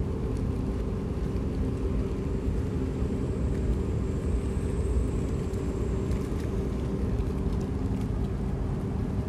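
Steady low rumble of a ferry's diesel engines, with a few constant hum tones over it.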